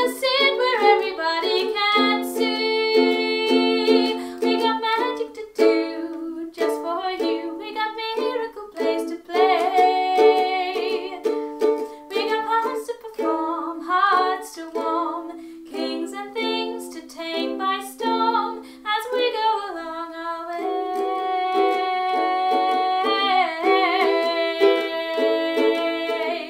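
A woman singing a song to her own ukulele accompaniment.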